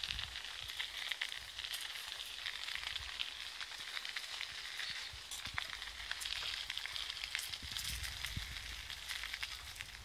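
Bicycle tyres rolling over a dry dirt path: a steady crackling hiss with scattered small clicks, over a low rumble.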